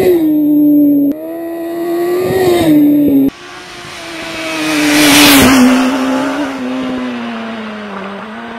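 Yamaha R1 inline-four motorcycle engine at high revs, heard in three cut-together clips. In the last clip it swells loud, then falls away in loudness and pitch as the bike passes and rolls off the throttle.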